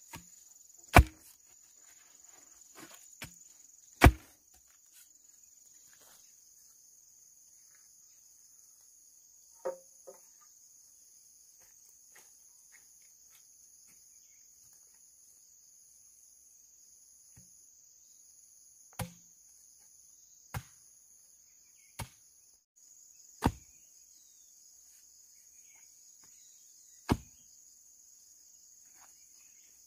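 Insects droning steadily at a high pitch, with a faster pulsing chirp over them for a stretch in the middle. About ten sharp knocks at uneven intervals cut through, the two loudest in the first few seconds.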